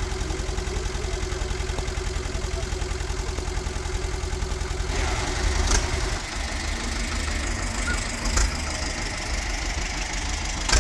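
Old tractor engines chugging at low revs as they drive slowly past, with a different tractor's engine taking over about five seconds in. A few short sharp clicks stand out over the engine sound.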